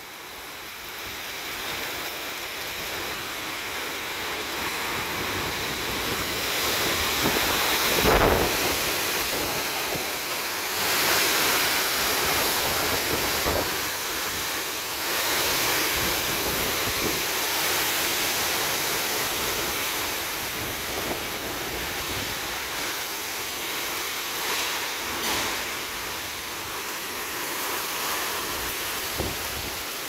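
Strong gusting wind with heavy rain: a steady rushing that swells and eases with the gusts. The loudest gust, about eight seconds in, buffets the microphone.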